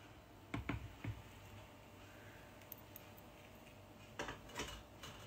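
A few light clicks and knocks of a spoon against a glass jar of chili oil: three about half a second to a second in, then a quick cluster around four seconds in.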